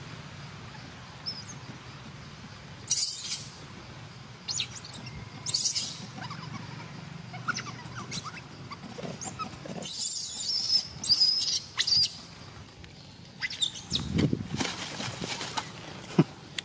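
Baby long-tailed macaque giving short, high-pitched squeals several times, with a lower dull noise near the end.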